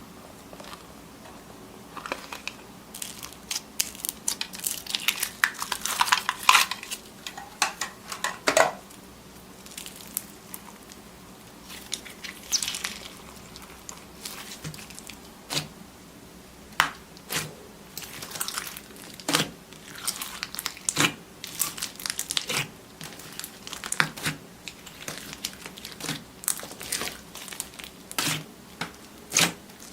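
Slime being squeezed and poked by hand, giving off irregular crackles and pops in dense clusters, with a short lull partway through.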